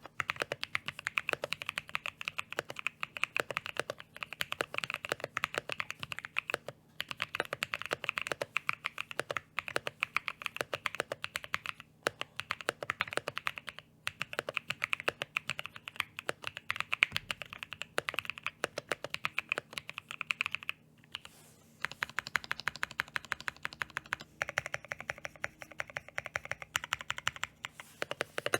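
Typing on a mechanical keyboard fitted with lubed and filmed AEBoards Naevy tactile switches (polycarbonate top, nylon bottom housing) in a Portico case with IFK Port keycaps: fast runs of keystroke clacks with short pauses between them. The sound is a bit shallow, without much depth.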